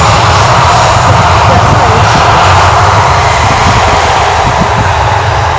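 Loud, steady jet engine noise from taxiing airliners: a Boeing 737 rolling past close by and a four-engine Boeing 747-400 freighter holding at the runway end. The noise eases off slightly toward the end.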